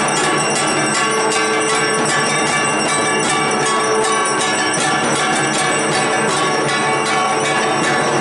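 Worship bells and struck metal ringing rapidly and continuously, a dense clangour with quick regular strikes, as rung during a Durga Puja aarti.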